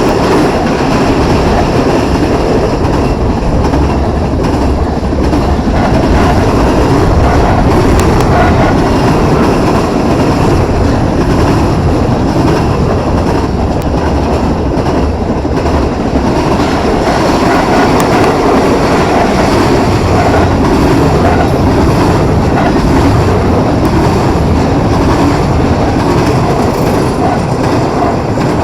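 Empty intermodal container wagons of a freight train rolling past close by in a loud, steady rumble, with wheels clattering over the rail joints.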